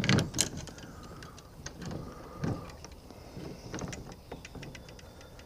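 Clicks and knocks of aluminium brackets and bolts being handled and fitted by hand, with a cluster of sharp clicks at the start, a couple of short scrapes between one and two seconds in, and a dull knock about two and a half seconds in.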